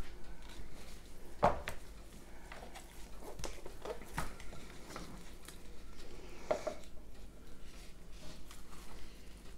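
A raw rack of pork spare ribs and a knife being handled on a plastic cutting board while the ribs are trimmed: a few separate knocks and soft slaps of meat and blade on the board, the loudest about a second and a half in.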